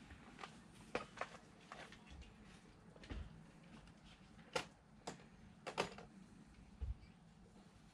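Irregular light clicks and knocks of hand tools and fasteners being worked while a strut brace is fitted to the front suspension tops, a few sharper ones near the middle.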